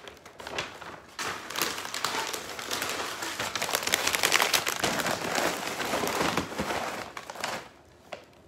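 Loud crinkling and rustling of crinkly wrapping or packaging being handled and crumpled, from about a second in until near the end.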